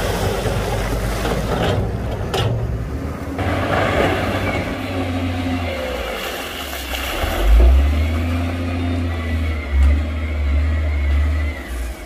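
Heavy construction machinery working: the diesel engines of dump trucks and a wheel loader running, with a low engine sound that swells louder in the second half.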